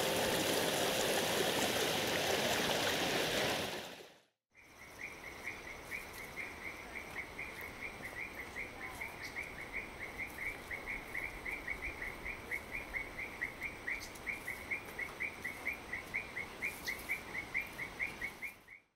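Stream water rushing over rocks for about four seconds. After an abrupt cut, a rainforest animal calls, one high chirp repeated steadily about four times a second.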